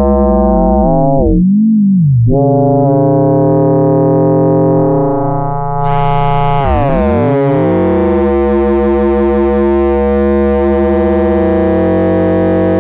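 Brüel & Kjær 1022 beat-frequency oscillator, frequency-modulated by a second one, giving a loud, buzzy electronic tone with many overtones. The pitch dives down and swoops back up about a second and a half in. Near six seconds the sound suddenly turns brighter, and the pitches glide and cross as the tuning knob is turned.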